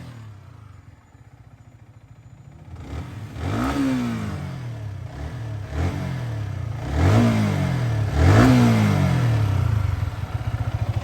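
Yamaha R15 V3's 155 cc single-cylinder engine idling quietly, then blipped four times, each rev rising and dropping back, and settling to a steady pulsing idle near the end. It is being run after clutch and top-end repair work to check how it sounds.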